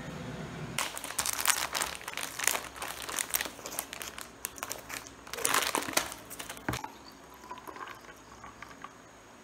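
Plastic instant-coffee packet crinkling and crackling in dense, sharp bursts as it is handled and torn open, loudest about a second and a half in and again around five to six seconds in, then thinning to a few quieter clicks.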